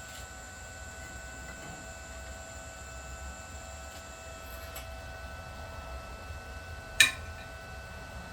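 A steady electrical hum and high whine from running workshop equipment, with a single sharp clack about seven seconds in. The highest whine stops about halfway through.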